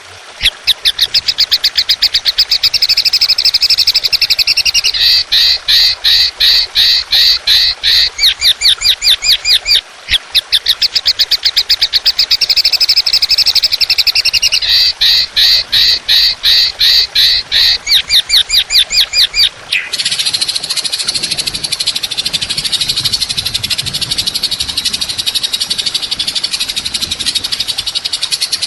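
Looped songbird training recording: fast runs of harsh, rapidly repeated high notes in a phrase that plays twice, then a continuous buzzy, rattling trill about two-thirds of the way in.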